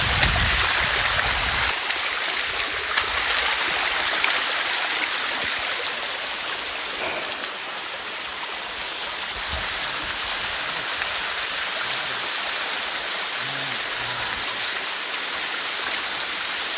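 Steady rush of water from a stream and small waterfall pouring over rocks, with a low rumble on the microphone in the first couple of seconds.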